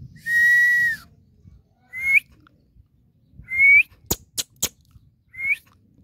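Indian ringneck parakeet calling: one long whistled call that drops at its end, then three short calls that each rise in pitch, spaced about a second and a half apart. A quick run of three sharp clicks comes between the third and fourth calls.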